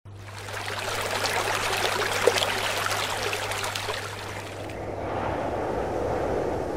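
Fountain water splashing and trickling over a low steady hum. About five seconds in, the splashing gives way to a quieter, lower rush.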